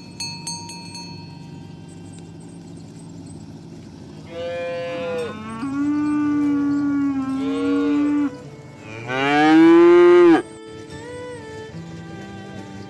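Cattle mooing: a short moo about four seconds in, then a longer, steady moo, then the loudest moo, rising and falling in pitch, near ten seconds in.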